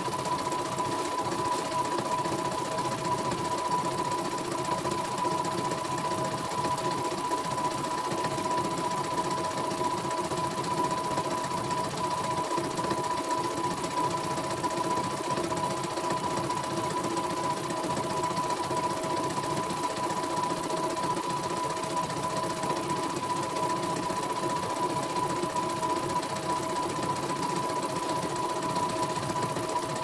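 Computerized home embroidery machine stitching a design: a steady, rapid needle rattle with a steady whine over it.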